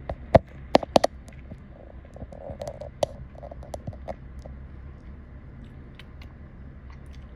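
A few sharp clicks close to the microphone in the first second, a short rustle, and another click near three seconds, over a low steady hum.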